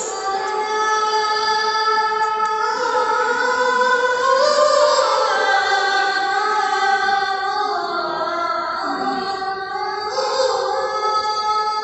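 A muezzin chanting the adhan, the call to prayer: one long, drawn-out phrase that slides slowly up and down in pitch.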